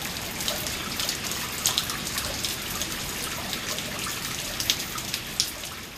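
Small garden waterfall: water splashing steadily down a rock face, with a few sharper splashes and drips over the top.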